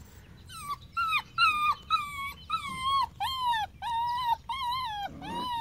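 A goldendoodle whining: a run of short, high-pitched whimpering cries, about two a second, each bending up and down in pitch.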